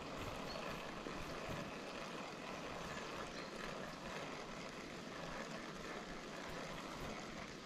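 Steady rushing of a river's running water.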